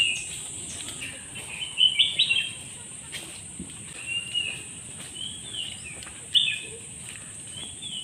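Wild birds calling: short whistled phrases repeat every second or so, loudest about two seconds in and again past six seconds. Under them runs a steady high-pitched insect drone.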